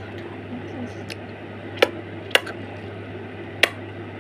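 Three sharp clicks of small hard objects knocking together, spaced unevenly over about two seconds, over a steady low hum.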